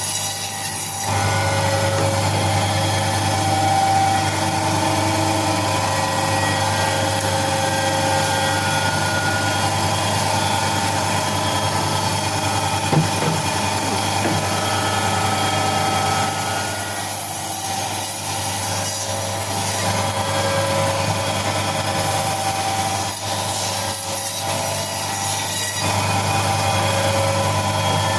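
Electric chicken cutting machine running steadily with a constant motor hum, its blade sawing through chicken, with a single sharp knock about halfway through.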